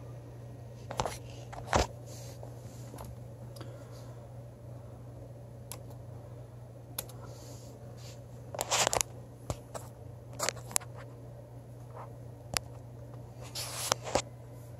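Handling noise: scattered short scrapes and clicks over a steady low hum, with the busiest cluster about nine seconds in and another near the end.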